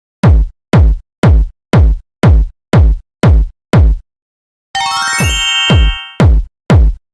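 Electronic music: heavy drum-machine kick drum hits, about two a second, each dropping sharply in pitch. They stop for a moment a little after four seconds, give way to a short, bright synth chord, then start again near the end.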